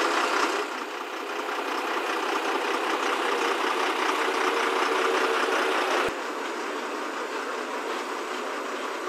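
Truck-mounted hydraulic crane at work lifting a boat: the truck's engine runs steadily, driving the crane's hydraulics, with a steady hum under it. The level drops abruptly about six seconds in and the sound goes on a little quieter.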